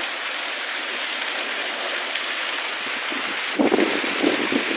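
Heavy rain pouring down steadily in a rainstorm. About three and a half seconds in, gusts of wind start buffeting the microphone.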